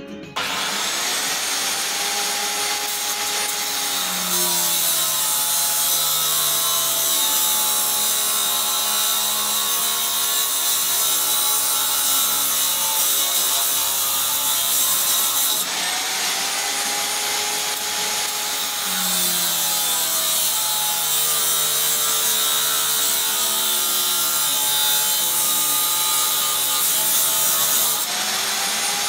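Corded angle grinder with a cut-off disc cutting steel, its loud hiss running throughout. The motor's whine starts just after the beginning, drops in pitch as the disc bites in under load (about 4 s and 19 s in), and climbs again as the load eases (about 16 s and near the end).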